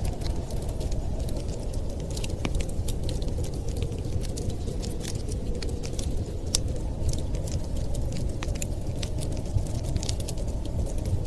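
Wood fire crackling, with many irregular sharp pops and snaps, over a steady low rumble of noise.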